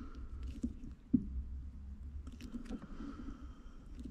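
Flathead screwdriver scraping and clicking against the gear-shift knob's plastic base and metal retaining clip as it is twisted to work the shift boot loose. Faint irregular clicks, with a sharper knock about a second in.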